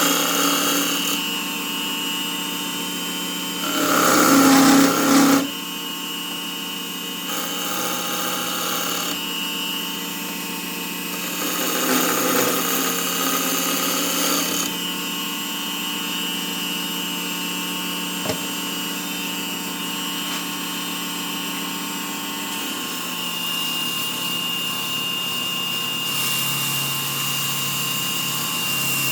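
A small electric wood lathe running steadily with a constant motor whine, with two louder, rougher stretches about four and twelve seconds in.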